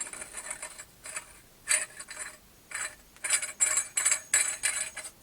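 Metal torch fittings being handled: a sharp click, then a series of short metallic clinks and scrapes with a thin ring, coming faster in the second half.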